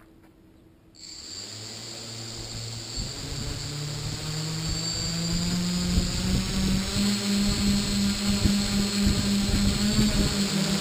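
Quadcopter's electric motors and propellers starting about a second in and spooling up, the hum climbing in pitch step by step as the throttle is raised toward lift-off. Gusty rumbling from the propellers' downdraft buffets the microphone.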